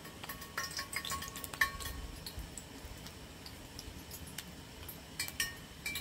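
Light metallic clinks and taps of utensils against a stainless pot and metal tray, some with a short ring; a cluster comes from about half a second to two seconds in, then a few more near the end.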